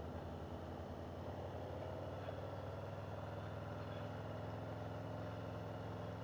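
Cruiser motorcycle's engine running at a steady speed while riding, heard from on the bike.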